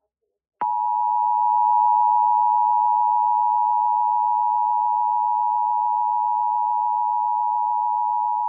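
Emergency Alert System attention signal: the steady two-tone alert (853 and 960 Hz sounded together) that announces an incoming emergency alert. It starts about half a second in, holds level for about eight seconds and cuts off near the end.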